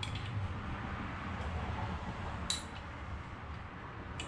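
Small metal clinks from hands fitting the 10 mm bolts of a crankcase breather box on an engine block: one sharp clink about halfway through and a lighter one near the end, over a steady low hum.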